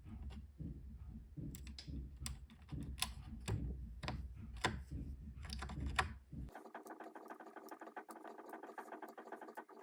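Keys of an Amiga keyboard clicking as they are pressed, a loose run of separate clacks. About six and a half seconds in, this cuts off sharply and gives way to a steady buzz with fast fine ticking.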